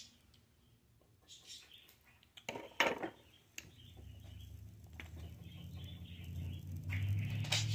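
A few sharp clinks of a utensil against a pot or dish, the loudest a little under three seconds in. Then a steady low hum sets in and grows gradually louder.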